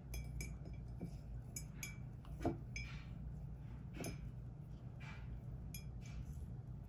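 Light clicks and clinks of makeup containers being handled, scattered about one every half second to a second, the loudest about two and a half seconds in, over a steady low room hum.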